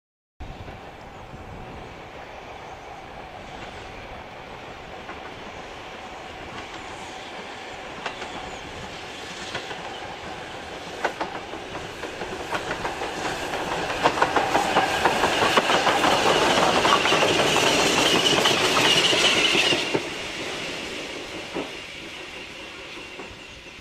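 Steam locomotive hauling a train under steam, approaching and passing beneath, with exhaust and the clatter of wheels over the rails. It grows steadily louder to a peak full of rapid clicks, then drops off suddenly about twenty seconds in as it passes under and away.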